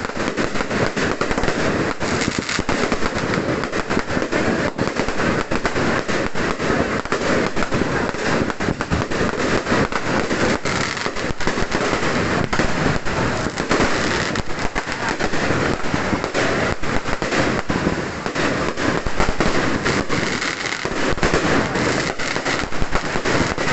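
Firecrackers going off in rapid, unbroken succession, a dense continuous crackle of bangs with no pause.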